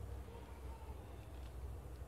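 Quiet background noise with a steady low hum and no distinct event.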